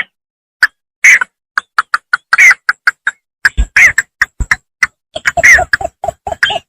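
Bittern calling from a paddy field: quick runs of short, clipped notes broken by brief pauses, with a few longer, harsher calls among them.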